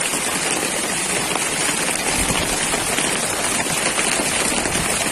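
Heavy rain falling steadily, an even hiss with a brief low rumble about two seconds in.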